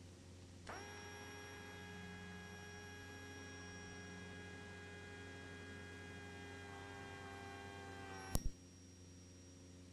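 Cessna 172RG's hydraulic landing-gear pump running as the gear retracts: a steady whine starts about a second in and cuts off with a sharp click about eight seconds in, once the gear is up. A low electrical hum lies under it throughout.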